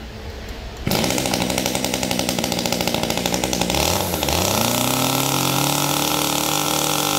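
A used Hitachi two-stroke chainsaw starts about a second in and runs briefly at a fast, uneven idle. Near the middle it is throttled up, and it holds a steady higher engine speed to the end.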